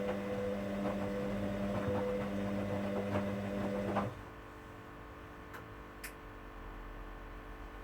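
Hoover washing machine's motor running with a steady hum and light ticking, cutting out abruptly about four seconds in, followed by two faint clicks.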